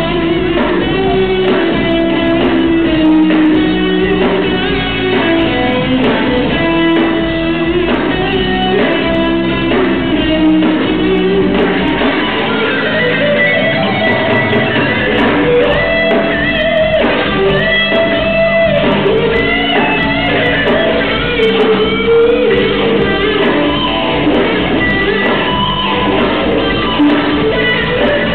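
Rock band playing live: electric guitar with a singer, over a steady rhythm.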